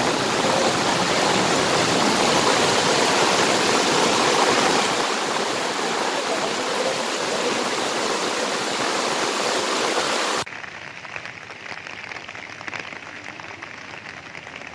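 Fast-flowing floodwater rushing steadily. About ten seconds in it cuts abruptly to a quieter, thinner water rush.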